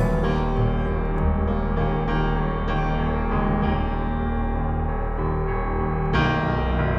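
Slow background piano music with held notes, a new chord struck about six seconds in.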